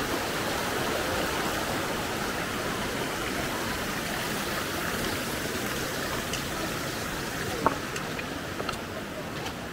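Mountain stream running over rocks as a steady rush of water. Near the end there are a few short sharp knocks.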